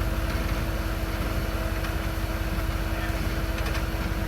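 Off-road rig's engine running steadily at low revs, a constant low rumble with a steady whine over it.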